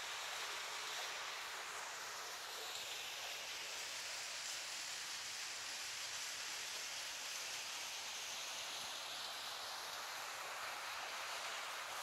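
Small waterfall, a thin stream of water falling and splashing, giving a steady, even rushing hiss.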